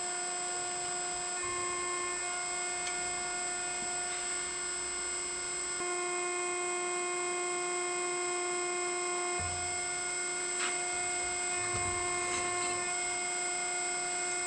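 A steady machine whine, one pitch with its overtones, holding constant throughout, with a few light clicks and two short low thuds, about nine and twelve seconds in.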